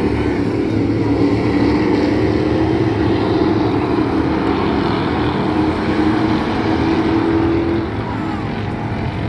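A pack of dirt-track race cars running laps together, their engines making a loud, overlapping drone that eases off slightly near the end.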